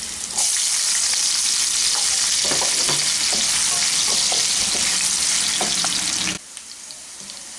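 Diced potatoes sizzling as they fry in hot refined oil in a non-stick kadai, stirred with a wooden spatula that scrapes and taps now and then. The sizzle drops off sharply about six seconds in and carries on quieter.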